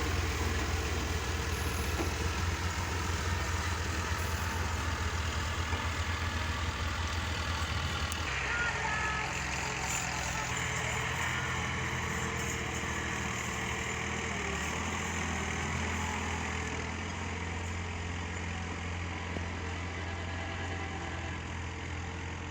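Belarus tractor's diesel engine idling steadily; about eight seconds in its note changes and settles into a smoother, steadier drone.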